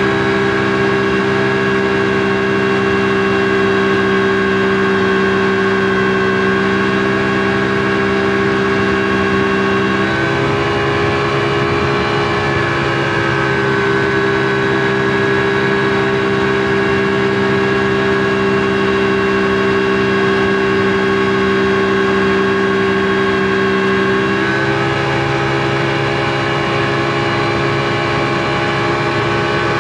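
Speedboat engine running steadily under way with a constant droning note. About ten seconds in the note shifts and its lower hum drops away, returning some fifteen seconds later, as the engine speed or load changes.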